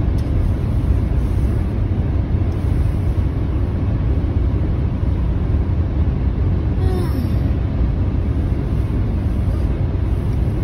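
Steady low road rumble inside a moving car's cabin: engine and tyre noise at highway speed on a wet road.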